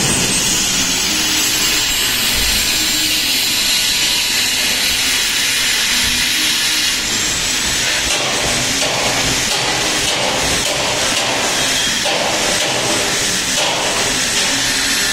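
Truck brake roller tester running: its electric geared motor and chain drive turn the grit-coated rollers with a steady, loud, hissing whir.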